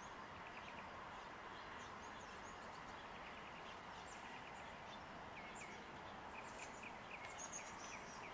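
Faint outdoor ambience: a steady hiss with small birds chirping on and off, including a run of quick repeated chirps in the second half.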